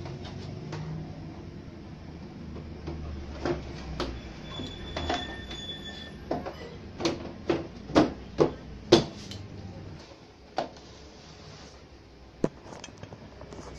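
Plastic knocks and clatter as the rear cabinet of a CRT television is handled and fitted over the set: a string of sharp knocks, loudest about two-thirds of the way in, then a couple more near the end.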